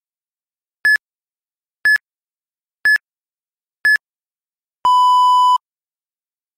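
Interval-training timer beeps: a countdown of short high beeps about a second apart, then one longer, lower beep about five seconds in. This is the signal for the switch between a one-minute run and a one-minute recovery.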